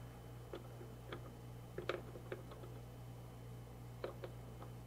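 Screwdriver tightening the mounting-bridge fastener screws of a CPU air cooler, giving faint, irregular clicks and ticks over a low steady hum.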